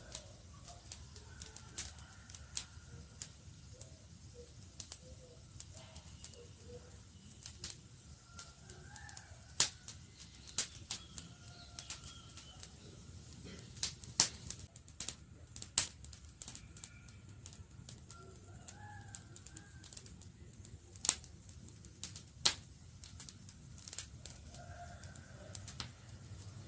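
Campfire crackling: irregular sharp pops and snaps, a few much louder than the rest, over a low steady rumble of burning wood. Faint bird calls in the background.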